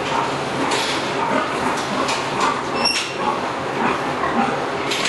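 Sow barn din: many sows grunting and calling in their stalls, with a sharp clank about three seconds in.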